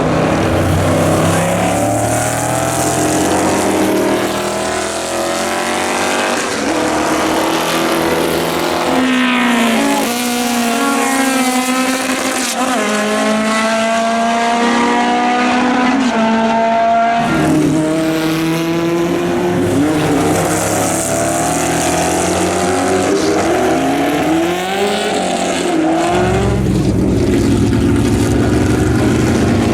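Historic Formula 5000 and Formula 2 racing cars at full throttle, several passing one after another. Engine pitch climbs through the gears and breaks off at each change. A deep low rumble is heard at the start and again near the end.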